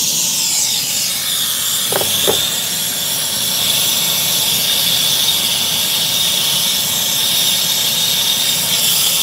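Hand brazing torch burning with a steady high-pitched hiss while it is played over the copper tubing at a refrigerator compressor to heat the joint before brazing.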